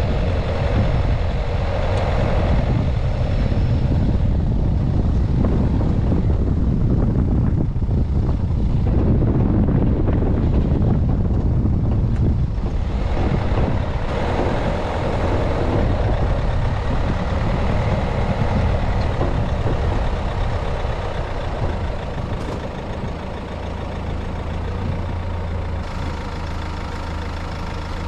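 Vehicle engine and tyres running along a rough dirt track, with uneven bumping and rattling. About three-quarters of the way through the vehicle stops and the engine settles to a steady idle.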